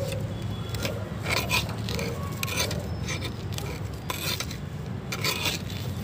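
Scraping and scratching in garden soil, a series of irregular strokes: the soil around the base of a hibiscus being loosened by light hoeing.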